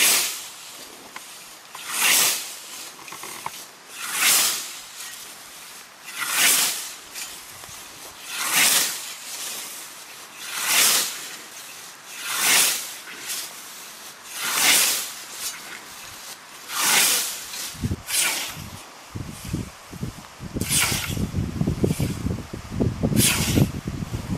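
Hand scythe swishing through tall grass in steady mowing strokes, about one every two seconds. Near the end the strokes become irregular and a low rumbling noise comes in with them.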